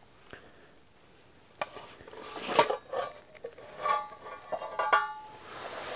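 Metal camp pot and lid being handled: scattered clinks, scrapes and knocks, with brief metallic ringing about four to five seconds in.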